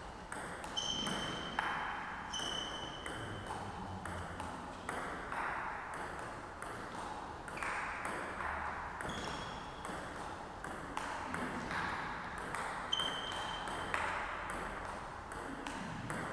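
Table tennis ball in play: quick, irregular sharp clicks of the ball striking bats and table in rallies, some with a brief ringing ping.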